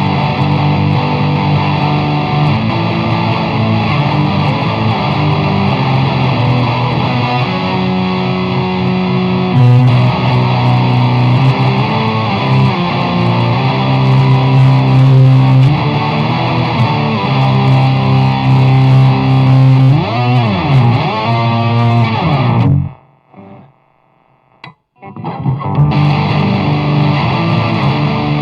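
Epiphone Les Paul 100 electric guitar played through distortion, running through riffs and chords with a few swooping bent notes. It stops for about two seconds near the end, then starts again.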